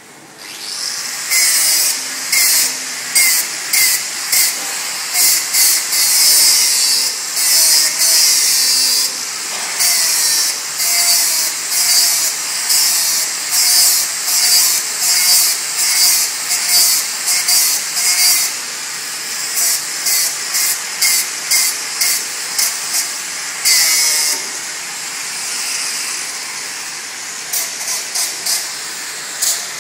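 Welding arc hissing steadily, broken by many short crackling bursts of a few tenths of a second each.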